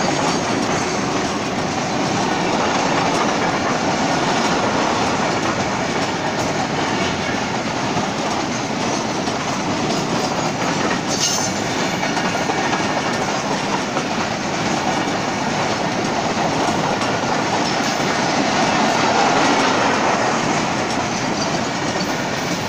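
Goods train of tank wagons rolling past close by: a steady rumble and clatter of steel wheels on the rails. A brief, sharp, high-pitched noise stands out about halfway through.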